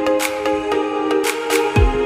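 Background electronic music: held synth chords over a steady beat of light percussion about twice a second, with a deep kick drum joining near the end.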